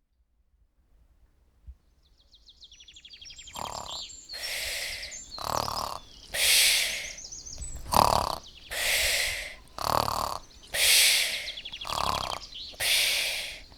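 Snoring, a rasping snort alternating with a breathy hiss about once a second, with small birds chirping in fast high trills that fade in over the first few seconds.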